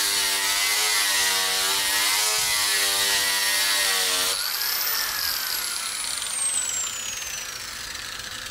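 Angle grinder grinding the old coating off a fibreglass boat hull, its pitch wavering as the disc is pressed against the surface. About four seconds in it is switched off, and its whine falls steadily in pitch as the disc spins down.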